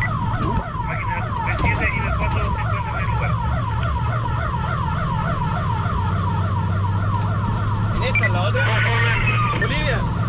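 Fire engine siren on a fast yelp, its pitch rising and falling about four times a second, over the steady low drone of the truck's engine.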